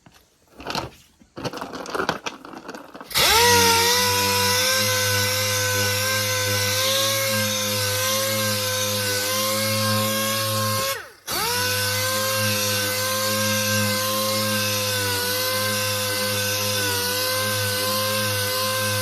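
A few light handling knocks, then a power sander spins up about three seconds in and runs steadily, sanding cured Bondo body filler on a truck bedside panel. It stops for a moment near the middle, starts again and runs on until the end.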